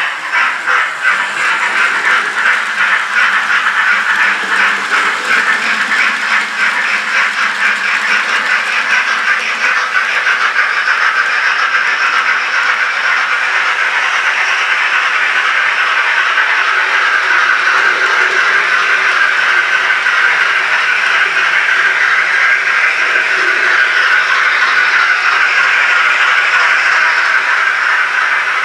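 Sound-fitted N gauge GWR Castle class model steam locomotive playing steam exhaust chuffs through its small onboard speaker. The beats quicken over the first ten seconds or so and then merge into a steady hissing rush as the engine runs.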